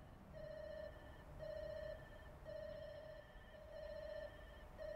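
Electronic railway warning signal in a station yard, beeping about once a second with each beep about half a second long, warning of an approaching train.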